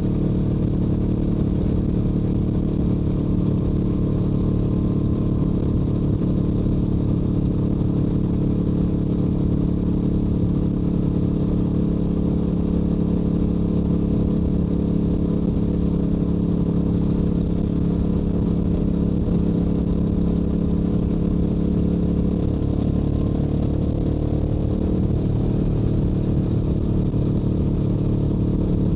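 Stock Yamaha YZF-R7's 689 cc parallel-twin engine and exhaust running steadily while cruising at highway speed. The engine note shifts slightly about three-quarters of the way through.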